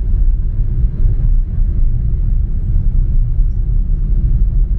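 Car on the move: a steady, loud low rumble of engine and road noise that flutters continuously.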